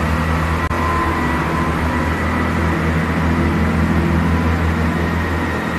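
Diesel train engine idling: a steady low drone with a faint high whine over it.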